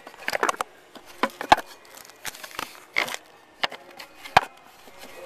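A dozen or so irregular knocks and clicks, with rustling between them: close handling noise.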